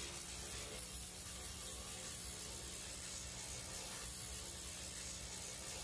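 Faint steady hiss with a low hum underneath, no distinct events: background noise.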